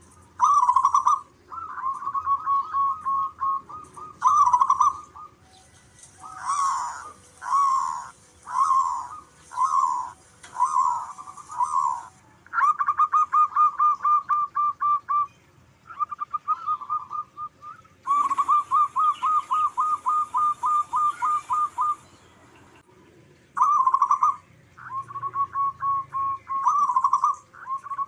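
Zebra doves (perkutut) calling in repeated bouts of fast staccato cooing notes, several a second. Part way in, a run of slower, separate notes comes between the rapid trills, as birds answer one another.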